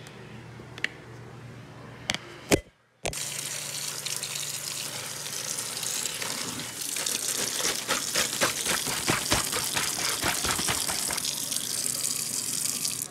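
Tap water running in a stream into a zip-top plastic bag held over a sink, filling it. About three seconds in it starts after a few sharp clicks and a brief break, and it grows louder partway through.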